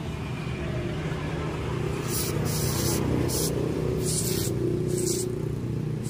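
Aerosol carburettor cleaner hissing in about five short sprays through its red straw nozzle into a dirty motorcycle fuel injector, starting about two seconds in. A steady low rumble runs underneath.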